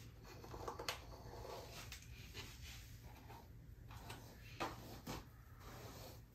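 Faint strokes of a bamboo wrap brush's bristles drawn through long hair, brushing it smooth, with a soft rasp on each stroke. The clearest stroke is about a second in, and two more come close together near the end.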